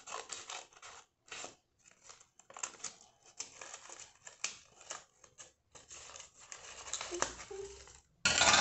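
Scissors snipping through folded paper in a run of short, irregular cuts, with paper rustling between them. A louder, brief burst of noise comes near the end.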